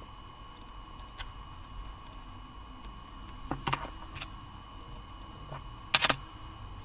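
Small hand tools being handled on a workbench: a few light clicks and taps, then a louder short clatter about six seconds in, over a faint steady high whine.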